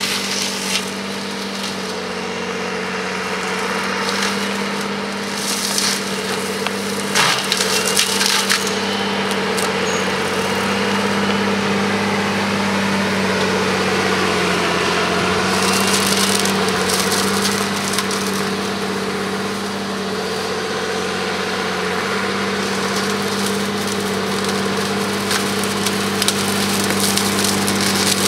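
Valtra road-rail tractor running a flail mulcher head on a hydraulic side-arm, chopping through brush and undergrowth. A steady machine hum sits under continuous crackling and splintering of shredded stems, with a few sharper snaps about seven to eight seconds in.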